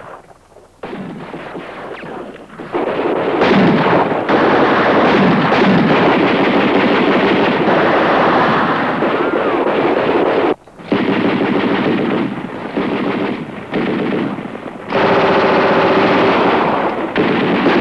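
Heavy automatic gunfire in long, sustained bursts. It starts lighter and grows much louder about three seconds in, then breaks off briefly twice in the second half.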